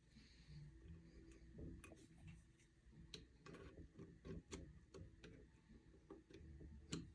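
Faint, irregular light clicks and taps of small metal parts as the retainer is fitted into the switch-valve bore of an RFE transmission valve body, the sharpest click near the end.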